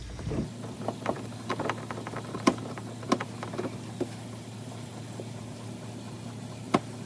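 Hand screwdriver driving a screw through a seatbelt tab into a plastic ride-on toy car: irregular sharp clicks and knocks of the tool and plastic, the loudest about two and a half seconds in and near the end. Under them is the steady low hum of a washing machine running.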